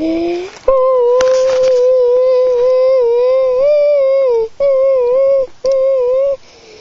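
A voice holding a long, steady high hum or sung note with small pitch wobbles. It breaks off twice near the end and picks up again each time.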